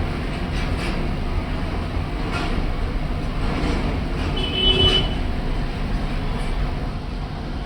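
Steady low rumbling background noise, with a brief high-pitched tone about four and a half seconds in.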